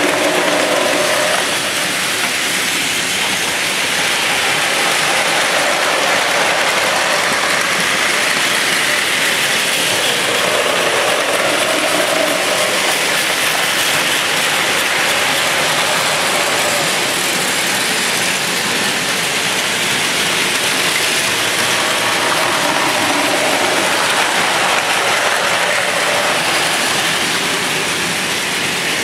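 Several battery-powered Plarail toy trains running on plastic track: a steady, dense whirring and rattling of their small motors and gearboxes and their wheels on the track.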